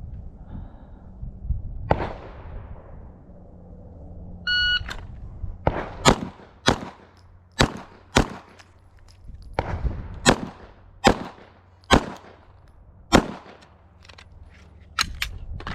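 A shot-timer beep, then about ten handgun shots fired over the next nine seconds at an uneven pace, with short gaps between groups of shots.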